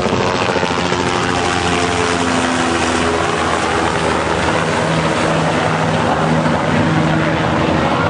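Helicopter flying low overhead: a steady engine and rotor drone whose pitch drifts slightly.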